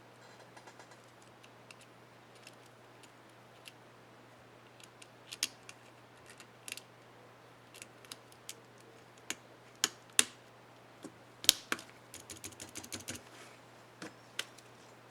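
Irregular plastic clicks and taps from an HP dm4 laptop keyboard's keys and keycaps being handled and pressed, with a quick run of clicks about twelve to thirteen seconds in. A faint steady hum lies underneath.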